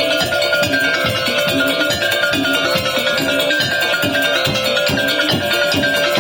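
Madurese tong-tong ensemble playing: fast, even drum and wooden-knock beats under a held tone and a repeating melody of struck pitched notes.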